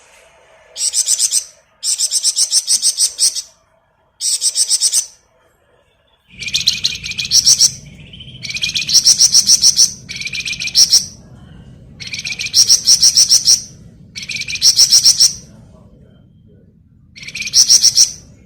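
Flamboyan songbird singing in its rapid rattling 'ngebren' style: about nine bursts of fast, high chattering notes, each up to a second and a half long, separated by short pauses. From about six seconds in, a low hum runs underneath.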